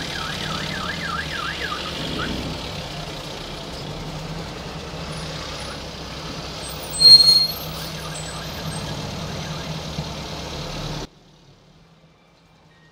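Slow street traffic: a steady vehicle engine hum with road noise. A rapidly warbling, alarm-like tone sounds for the first couple of seconds, and a short, loud high-pitched tone about seven seconds in. The sound cuts off abruptly near the end.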